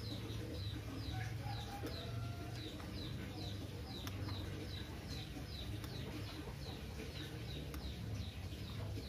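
A small bird chirping over and over, short falling notes about three a second, over a steady low hum, with a few faint taps of a spoon against an eggshell.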